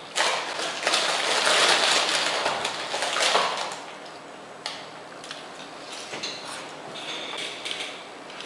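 Crinkling rustle of plastic snack packaging as hands dig into a cardboard snack box, loud for about the first three and a half seconds. After that, fainter handling rustles and small clicks.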